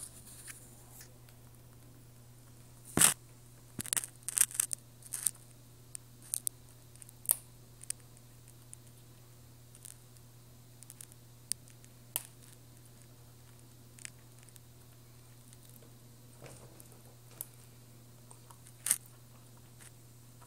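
Chinchilla nibbling and chewing a goji berry held in its front paws: irregular small crunching clicks, a cluster of louder bites a few seconds in, over a steady low hum.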